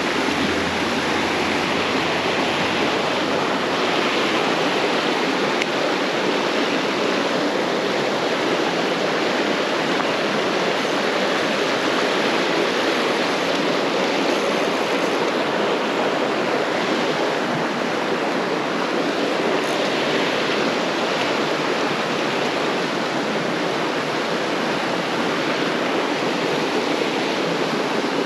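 Creek water rushing steadily, an even, unbroken wash of noise.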